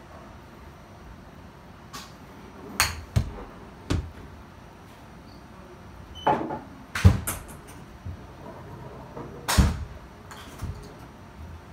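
Golf wedge shots in an indoor simulator bay: sharp knocks of the club striking the ball off a hitting mat and the ball thudding into the screen, along with lighter taps of the club on the mat and balls. The knocks come in three clusters, the loudest near the middle and toward the end.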